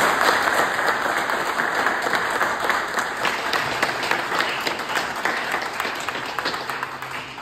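A small audience applauding, many hands clapping at once, dying away gradually toward the end.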